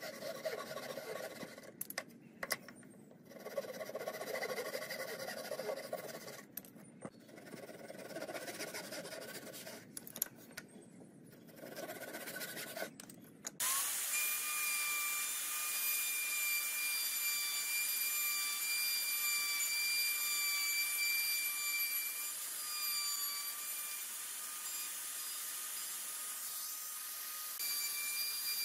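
Handsaw cutting a pine board, runs of rasping back-and-forth strokes with short pauses between them. About two-thirds of the way in it gives way abruptly to an electric plunge router running at speed with a steady high whine as its bit routs into the wood.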